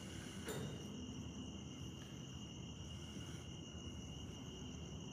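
Crickets chirping faintly and steadily, a thin high-pitched note over quiet background noise.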